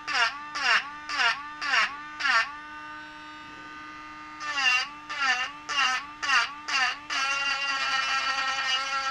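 Small handheld power tool motor pressed into the work in short repeated strokes, its pitch dipping under load with each stroke about three times a second, then running free with a steady whine before a longer continuous cut from about seven seconds in. This is the sound of shaving material off a part.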